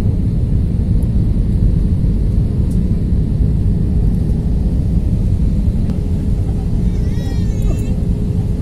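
Steady low roar of cabin noise inside an Airbus A320-200 airliner descending on approach: engine and airflow noise heard through the fuselage, with a faint steady hum running through it. A brief high warbling sound comes through about seven seconds in.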